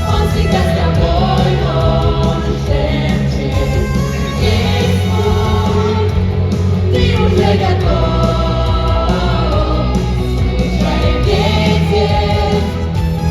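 Loud music with voices singing, over a strong steady bass.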